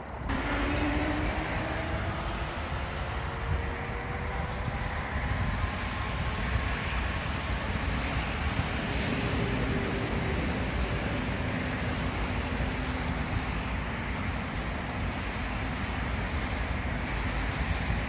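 Steady wind and road rumble from riding a bicycle, with traffic noise in the background. A few faint tones rise slowly in pitch over the first few seconds.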